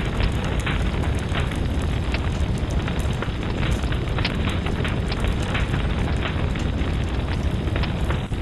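Fireplace fire crackling, with frequent irregular sharp pops and snaps over a steady low rumble of the flames.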